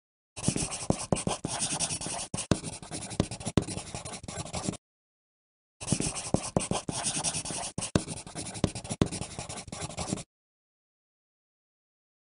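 Pencil writing on paper: quick scratching strokes with sharp little taps, in two stretches of about four and a half seconds each, separated by a second of dead silence.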